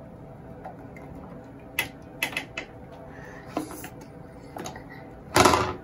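Scattered light clicks and knocks of hands and fittings at a bathroom sink during soapy handwashing, followed by one short, louder bump near the end.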